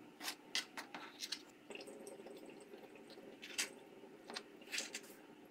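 A large knife cutting through a chocolate-glazed layered cake with a shortcrust base, sitting in a metal baking tray: faint, irregular clicks as the blade goes through.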